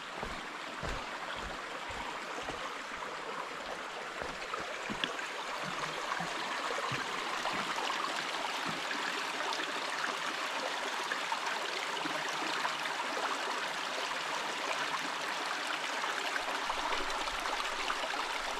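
Small rocky woodland brook running and trickling over stones, a steady rush of water that grows a little fuller after the first few seconds. Footsteps on the dirt trail thud softly in the first few seconds.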